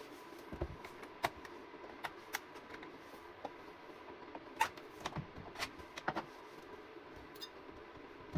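Irregular sharp clicks and light knocks, about a dozen scattered through, over a faint steady hum and a thin steady tone; no engine running.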